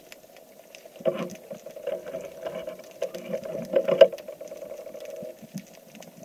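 Underwater sound picked up by a camera in its housing as a freediver swims over the seabed: crackling clicks over a steady hum, with louder bursts of noise about 1 second in and again about 4 seconds in.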